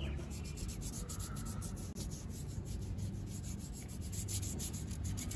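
Toothbrush bristles scrubbing paint remover back and forth over the painted steel of a tractor wheel rim in quick, even strokes, to lift stray black paint from the silver hub.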